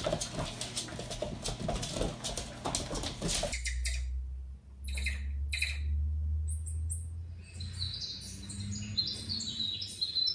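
For the first few seconds, dense scuffling and clicking. Then, behind a low hum, birdsong played through a television speaker comes in over the second half: quick, repeated high chirps that step downward in pitch.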